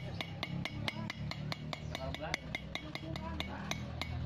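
Hammer blows on a metal drift driving a new rear sprocket bearing into the hub of a Yamaha Jupiter MX: quick, even metallic taps, about five a second. The flat-ended drift bears on the bearing's edge so the inner race is not struck.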